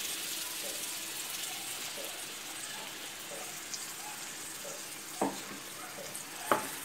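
Onions, tomatoes and garlic frying in sesame oil in a pan, a steady sizzle, with two short knocks near the end.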